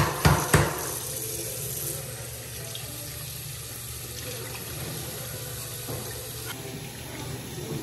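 A bathroom faucet runs steadily, its water splashing over a frozen juice carton held in the stream to thaw it and into the sink basin. Two sharp knocks come about half a second in.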